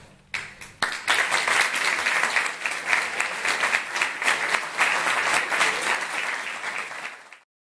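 Audience applauding: it breaks out just after the start, fills out within a second, and is cut off suddenly near the end.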